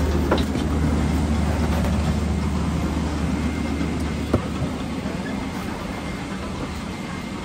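Steady cabin noise of a parked airliner during boarding: a low hum under a rush of air. A sharp click comes just after the start and a knock about four and a half seconds in, after which the hum drops somewhat.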